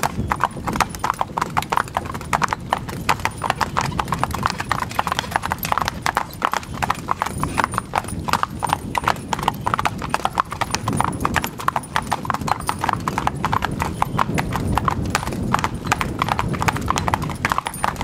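Hooves of a four-horse team clip-clopping on an asphalt road as they pull a wagon, a fast, continuous clatter of many overlapping strikes.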